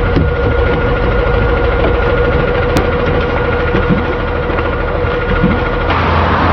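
City bus engine idling at a stop, a steady low rumble with a constant hum. About six seconds in the sound changes abruptly.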